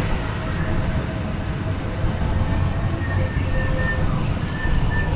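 Steady low rumble of a vehicle on the move, heard from inside, with a few faint held tones over it.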